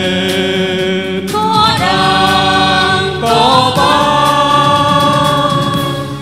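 Group singing with musical accompaniment, the voices holding long notes.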